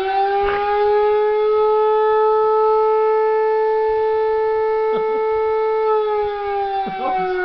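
A siren holding one steady wailing tone, its pitch slowly sinking after about six seconds as it winds down. A small dog, a Pomeranian, breaks in with short wavering howls about five seconds in and again near the end.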